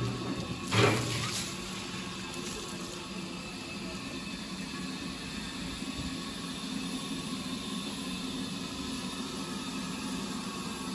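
BR Standard Class 5 steam locomotive standing at rest, hissing steadily with a low hum. About a second in comes a brief, louder rush of water as the water column's hose is swung off the tender.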